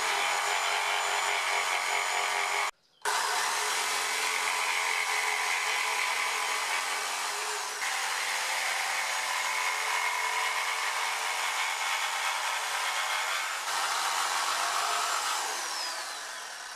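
Corded electric jigsaw running steadily as it cuts through a wooden bed slat, breaking off briefly about three seconds in. Near the end the motor winds down.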